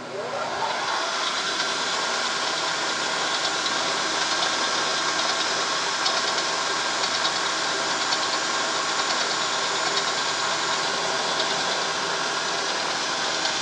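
Milling machine spindle switched on and rising in pitch over about a second as it comes up to speed, then running steadily while a twist drill in its drill chuck bores a bolt hole into a metal workpiece.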